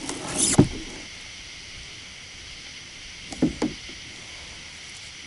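Handling noise from fishing gear on a plastic kayak: a brief rustle and a solid thump about half a second in, then two softer knocks a little after three seconds, over a steady high background hiss.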